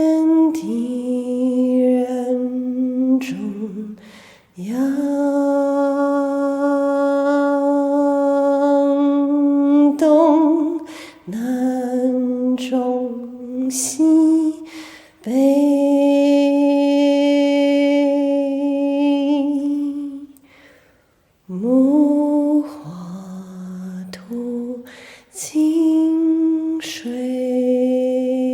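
A single voice singing a slow, chant-like melody: long held notes, some over five seconds, with vibrato toward their ends, separated by brief pauses for breath.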